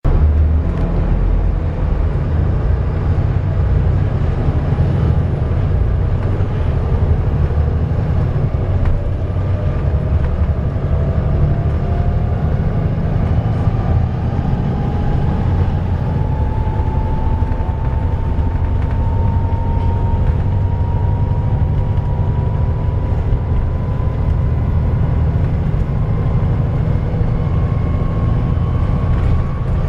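Volvo B7TL bus's diesel engine running with a steady low rumble, and its engine cooling fan whining loudly like a hoover. The whine rises slowly in pitch from about seven seconds in as the fan speeds up.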